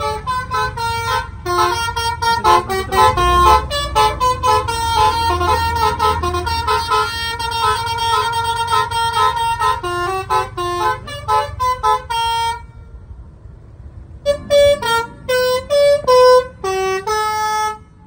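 Coach's telolet horn, a set of musical air horns playing a fast tune of quickly changing notes. It stops about twelve seconds in and plays a second short tune a couple of seconds later. A low rumble sits underneath during the first several seconds.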